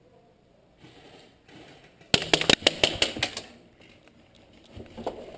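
A burst of airsoft fire at close range: a rapid string of sharp clacking cracks, about seven a second, starting about two seconds in and lasting just over a second.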